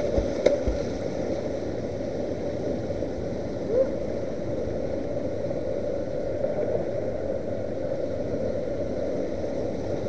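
Steady rush of a rocky stream and small waterfall, heard dull and muffled through a waterproof camera case, with a brief rising sound about four seconds in.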